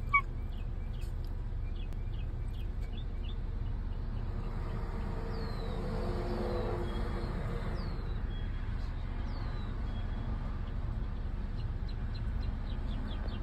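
Steady low rumble inside a car cabin with the engine idling, with a few faint high, falling squeaks in the middle and light ticks here and there.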